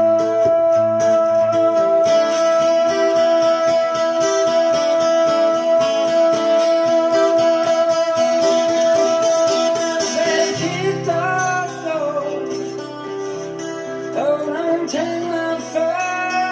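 A song with singing and guitar played through a 13JZ8 valve amplifier of about two watts and 1959 Phonola 10.2-inch radio speakers. One long held note runs through the first ten seconds or so, then the melody moves on.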